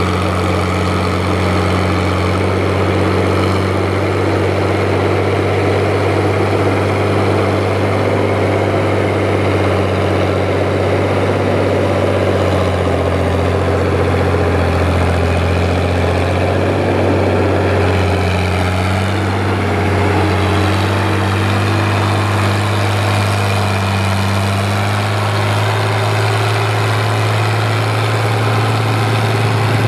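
Fiat 850 four-wheel-drive tractor's diesel engine running steadily as it hauls a trailer through floodwater. Its pitch shifts a little midway and again near the end.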